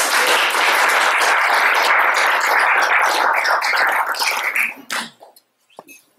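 Audience applauding, a dense crowd of claps that dies away quickly about five seconds in.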